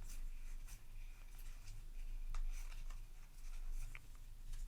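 Magic: The Gathering booster pack and cards being handled: soft rustling and sliding strokes with a few light ticks, over a low steady hum.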